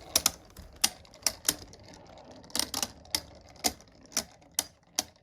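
Two Beyblade Burst spinning tops, Wizard Fafnir and Harmony Pegasus, clashing as they spin in a plastic Hypersphere Beystadium. About a dozen sharp, irregular clicks as the tops knock into each other.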